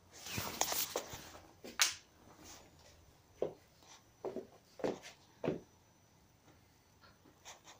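Phone being handled: a burst of rustling and a sharp click, then four soft footsteps on a wooden floor about half a second apart.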